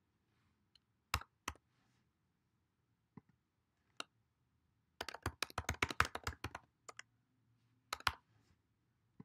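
Typing on a computer keyboard: a few single key clicks, then a quick run of keystrokes about five seconds in, and two more clicks near the end.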